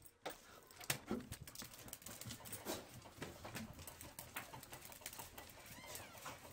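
Dogs' claws clicking and tapping on a tile floor as they walk in, a quick irregular patter of light clicks.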